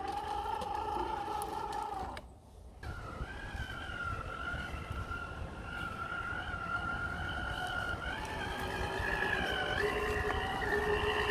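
Hobbywing Fusion 1800kv brushless motor of an RC crawler whining steadily under throttle, its pitch stepping up and down as the speed changes. The sound drops out briefly about two seconds in, with a low rumble beneath the whine throughout.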